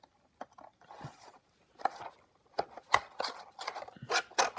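Cardboard boxes of pistol cartridges being handled and opened by hand: a scattered series of light clicks, taps and scrapes, the sharpest ones past the middle.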